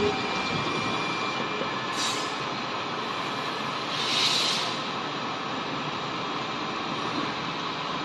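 Hoston C6266Y x 4000 manual engine lathe running with a steady mechanical hum and faint steady whine as its carriage traverses along the bed toward the headstock. A brief hissing swell comes about four seconds in, with a smaller one about two seconds in.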